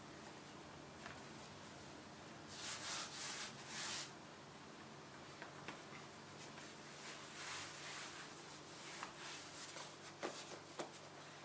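Hands folding a sheet of laminated Danish pastry dough on a floured countertop: soft rubbing and brushing, with a louder brushing stretch a few seconds in. Near the end, plastic wrap crackles and ticks as it is spread on the counter.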